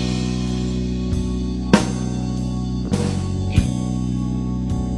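Blues-rock band playing a slow groove: drum kit hits over steady held bass and guitar notes.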